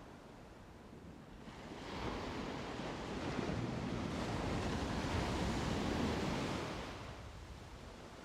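Ocean surf: a wave builds over a couple of seconds, rushes loudly for a few seconds, then fades away near the end.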